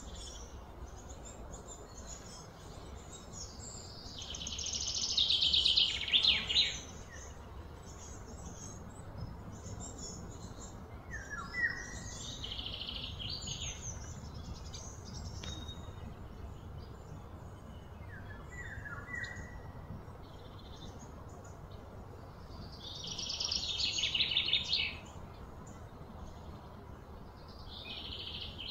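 Birds calling: two loud, rapid trilling songs that swell and stop, one about four seconds in and one near the end, with a few short falling call notes between them over steady low background noise.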